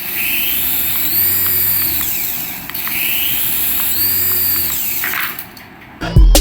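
A battery-powered toy's small motor whirring. Its high whine rises, holds and falls away twice, each time over about two seconds.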